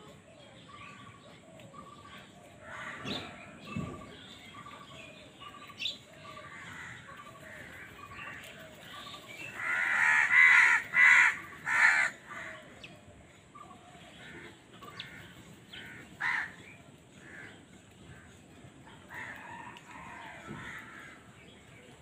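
House crows cawing, harsh calls scattered throughout. The loudest is a cluster of three or four caws about ten to twelve seconds in, with another single caw a few seconds later.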